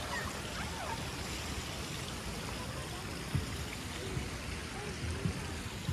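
Steady outdoor hiss with faint distant voices in the first second and two soft low thumps later on.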